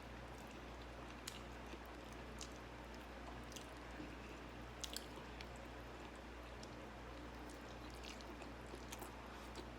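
Faint chewing and wet mouth clicks of someone eating, over a steady low hum, with a pair of sharper clicks about five seconds in.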